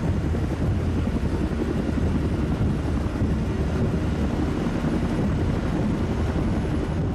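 Several Bell UH-1 'Huey' helicopters flying, a steady, loud rotor chop with turbine noise.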